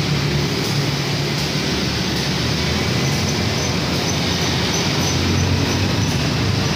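Steady background noise of running vehicle engines, with a low hum that shifts slightly in pitch and no clear single event.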